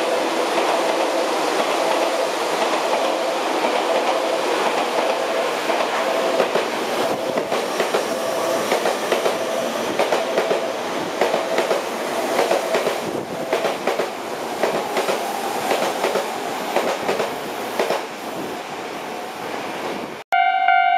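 Tobu 30000 series electric train running past a platform: steady running noise with a held whine, then a run of rhythmic wheel clacks as the cars go by, fading as the train leaves. Music cuts in abruptly at the very end.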